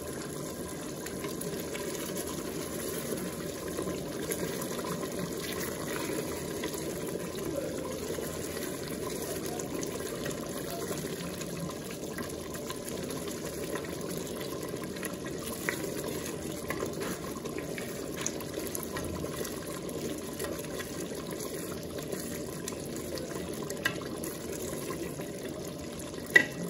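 Thick beef curry bubbling and simmering in an open aluminium pressure cooker pot while a wooden spoon stirs it, with a few light scrapes and ticks and one sharper knock of the spoon against the pot near the end.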